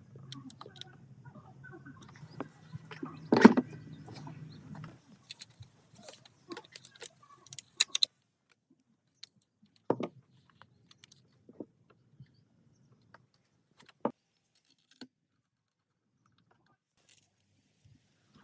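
Small metal parts clinking and knocking in hand work, with one loud knock about three and a half seconds in and scattered sharper clicks after. A low hum runs underneath for the first five seconds and then stops.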